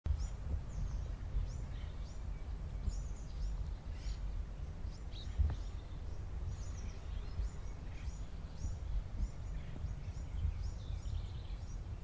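Several birds singing, with a steady stream of short, high chirps and trills, some rapidly repeated, over a constant low background rumble.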